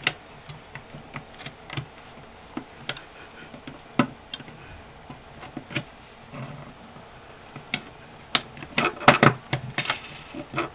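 Irregular clicks and taps of an airsoft AEG gearbox shell being fitted back together over the spring and spring guide. The taps are sparse at first, then a quick run of louder clicks comes near the end as the shell halves are pushed into place.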